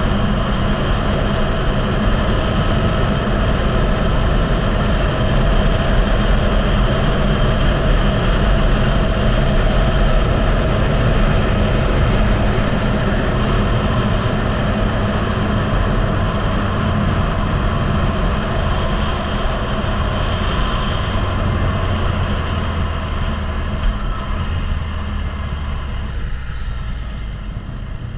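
Yamaha MT-09's three-cylinder engine running at speed under heavy wind noise on the microphone, easing off and slowing toward the end.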